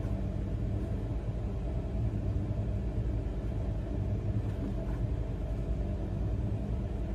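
A steady low hum with a constant pitch, unchanging throughout.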